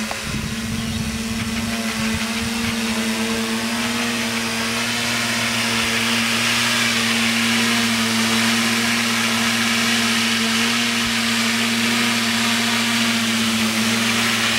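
Twin brushless motors (DYS D3530) of a homemade RC tilt-rotor turning 10-inch propellers in flight: a steady buzzing hum that holds one pitch while the craft hovers low and settles toward the ground.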